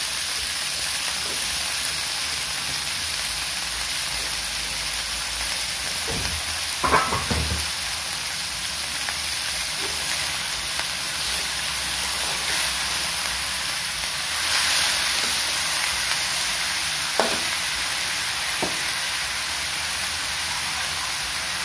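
Sliced napa cabbage sizzling steadily in a wok of hot oil and fried chili-garlic spices, with a metal spatula stirring and knocking against the wok a few times, about a third of the way in and twice near the end.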